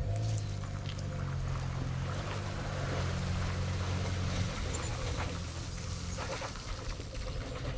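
Boat motor running with a steady low hum that weakens about four and a half seconds in, with scattered light knocks.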